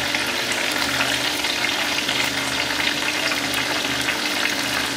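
Onion deep-frying in the oil of a small electric deep fryer: hot oil bubbling and crackling steadily, with many fine pops.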